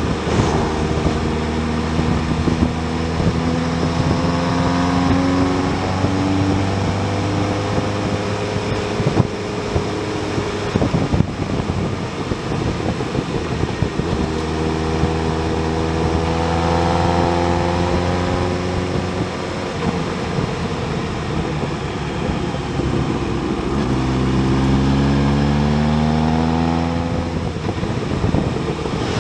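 Motorcycle engine pulling at road speed over a steady rush of wind and road noise. Its pitch climbs under throttle several times, notably a few seconds in, about halfway through and near the end, and falls back between.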